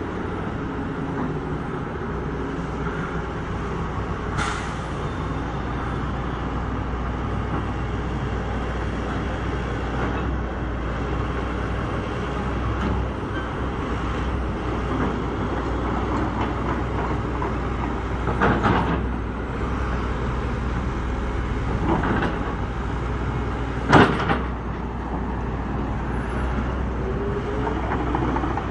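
Hitachi crawler excavator working its way down off a lowboy trailer under a steady engine and traffic rumble, with a few sharp metal clanks; the loudest comes late on.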